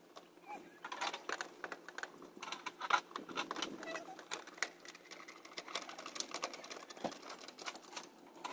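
Small clicks and rattles of wire leads and metal spade connectors being handled and pushed onto the terminals of a new HVAC condenser run capacitor, many quick irregular clicks.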